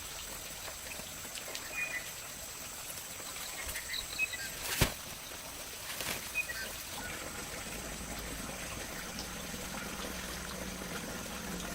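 Outdoor ambience: a steady hiss with scattered short bird chirps, a sharp click a little before the middle, and a faint low hum that comes in during the second half.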